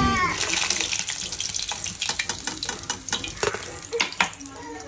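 Hot oil sizzling as battered egg pieces deep-fry in a steel kadai. A few sharp clicks come from the steel slotted spoon and plate as the fried pieces are lifted out.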